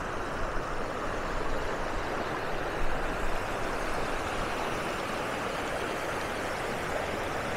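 Steady rushing of a fast-flowing stream, an even wash of water noise.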